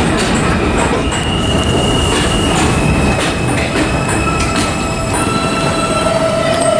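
Subway train on the platform track: a loud steady noise with several long, steady high-pitched tones and scattered clicks.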